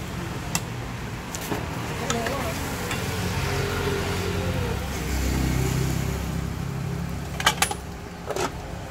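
Pancake batter sizzling as it is poured into a hot metal pan, with a few sharp metal clanks of the pan lids near the end, over a steady low hum.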